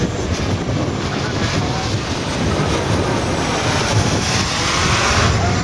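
Large-scale radio-controlled de Havilland Comet model jet flying past. Its engine noise swells to its loudest about four to five seconds in, over wind rumbling on the microphone.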